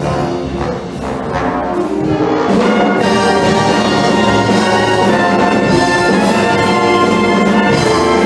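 A wind band playing, with brass such as trombones and trumpets prominent in sustained chords; the music gets louder about three seconds in.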